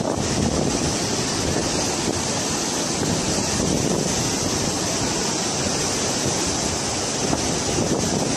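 Muddy flash-flood water rushing down a wide riverbed as one steady, unbroken wash of noise, with wind buffeting the microphone.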